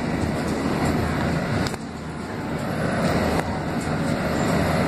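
Engine and road noise of a moving road vehicle heard from inside the cabin: a steady low rumble, with a couple of light knocks.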